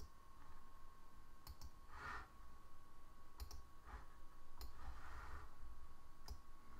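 A few faint computer mouse clicks, some in quick pairs like a button pressed and released, over a faint steady high hum.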